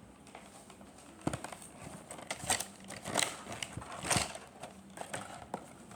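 Plastic toy packaging being opened and handled: a string of irregular clicks, taps and crinkles, with sharper knocks about a second in and around the middle.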